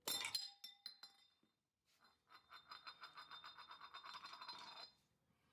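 Light metallic clinks of a flathead screwdriver being tapped with a dead blow hammer to work the dust cap off a front wheel hub: one sharp clink at the start, two faint taps, then a quick run of light taps, about six a second, for a couple of seconds.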